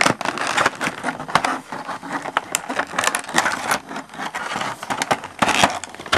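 Clear plastic blister tray of an action figure's packaging being handled, crackling and crinkling irregularly with many sharp clicks.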